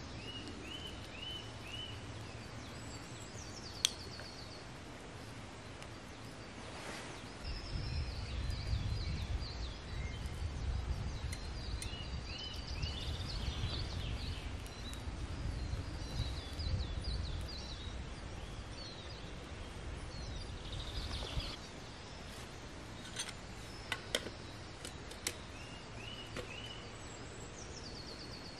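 Songbirds singing in a forest: short rising notes in quick groups of three or four, and high trills. A low rumble runs through the middle stretch, and a few sharp clicks come near the end.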